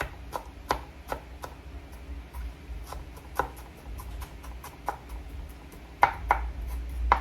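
Knife chopping vegetables on a cutting board while mincing them fine: short knocks about two to three a second, with a few louder knocks near the end.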